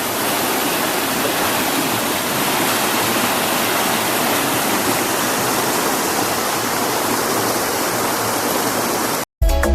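Stream water rushing, a steady even hiss. It cuts off abruptly near the end.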